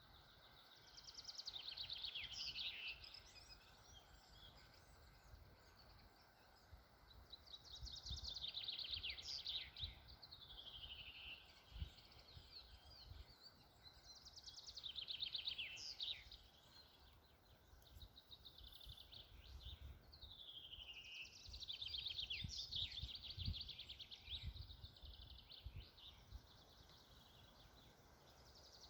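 A songbird singing, repeating a short phrase of a fast trill with downward-sliding notes about every six seconds, over a faint low rumble.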